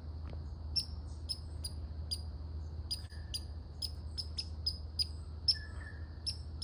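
Red squirrel barking: a run of short, sharp barks, about two or three a second and unevenly spaced, over a steady high-pitched hum.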